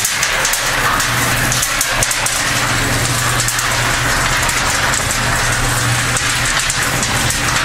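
Homemade half-yard cement mixer running: an electric motor turning the steel drum through V-belts, pulleys and pillow block bearings, a steady hum under a continuous rattle with fine rapid clicking.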